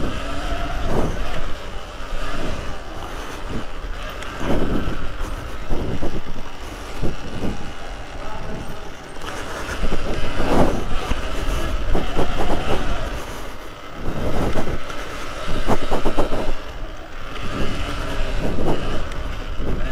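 Electric dirt bike ridden over whoops on a dirt track. Its motor whine rises and falls with the throttle, and surges of knocks and rattles come every second or two as the bike hits the bumps.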